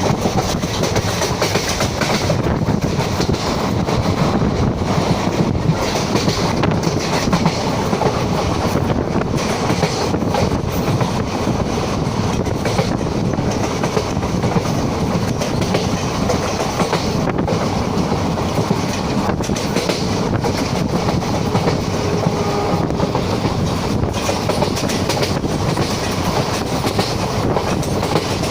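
Passenger express train running, heard from on board: a steady, loud rumble and rush of the coaches and wheels on the rails.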